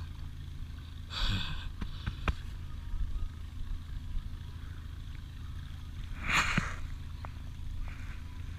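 Boat motor running steadily in gear while trolling, a low even hum, with a couple of brief noisy rustles about a second in and about six seconds in and a few light clicks.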